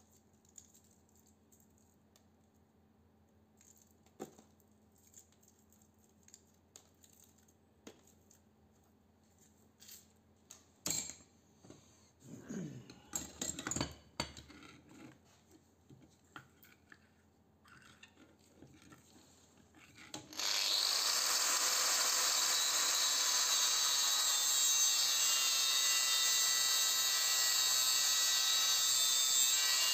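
Light clicks and clatter of metal parts handled on a steel workbench. About two-thirds of the way in, an angle grinder starts abruptly and runs steadily, cutting into a scrap transformer's steel bracket.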